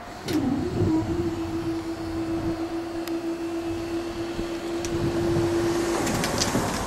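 Level crossing barrier power unit humming as the barrier booms rise: a click, a brief dip in pitch, then a steady drone that stops about six seconds in as the barriers come fully up.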